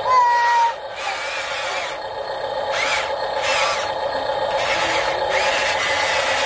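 Electric motors of a radio-controlled toy excavator whining steadily, with the pitch shifting, as it drives forward on its tracks and lifts its boom. A brief high squeal comes at the very start.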